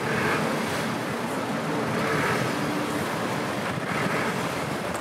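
Blizzard wind blowing steadily, swelling in gusts about every two seconds, over the low running hum of a vehicle.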